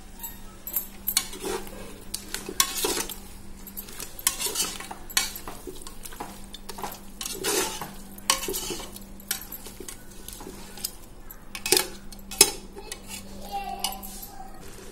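A spoon stirring and scraping around a pressure cooker, mixing ginger-garlic paste into frying goat head pieces in irregular strokes, with a faint sizzle underneath.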